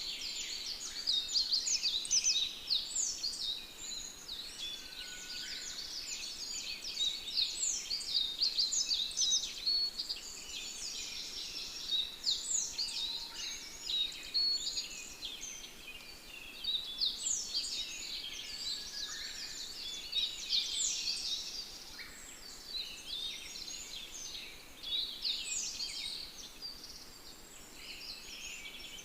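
A dense chorus of many small birds chirping and singing, with quick overlapping high chirps that swell and ease in waves every few seconds.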